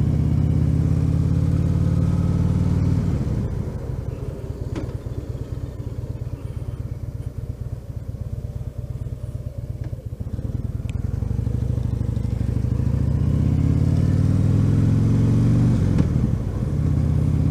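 Harley-Davidson Dyna Switchback's V-twin engine on the move. It runs steadily under throttle, then backs off about three seconds in and goes quieter at low revs. From about eleven seconds it pulls up again, rising in pitch, with a short dip near the end like a gear change.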